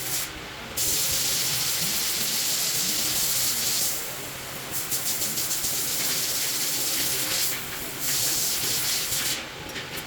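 Three long bursts of loud hissing spray, each lasting a few seconds and cutting off sharply, with short pauses between.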